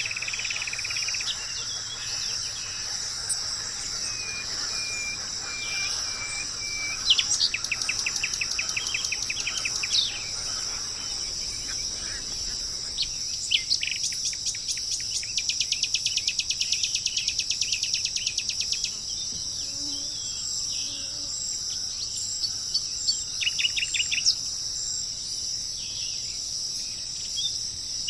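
Forest birds singing rapid trills of quickly repeated notes, several bursts, over a steady high-pitched drone of insects.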